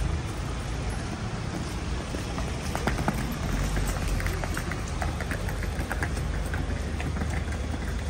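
Steady low rumble of city traffic. About three seconds in comes a few seconds of rapid light clattering: a wheeled suitcase rolling over stone paving.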